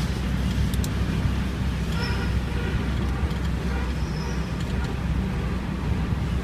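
Steady low rumble of road and engine noise inside a car's cabin, moving in city traffic.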